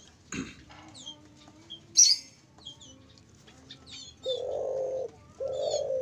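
Caged doves cooing, two long low coos near the end, over many short high chirps from small birds. One sharp, loud high-pitched sound about two seconds in.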